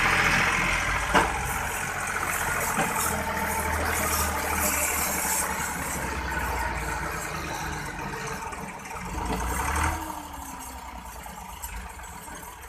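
Massey Ferguson 260's three-cylinder diesel engine labouring under heavy load as the tractor strains to drag a brick-laden trailer through soft sand. There is a sharp knock about a second in. The engine's rumble eases off near the ten-second mark.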